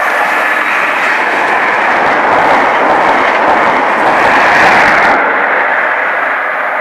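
Great Western Railway High Speed Train with Class 43 diesel power cars passing at speed, a steady rush of engine and wheel noise. It is loudest about four to five seconds in as the rear power car goes by, then drops away sharply as the train recedes.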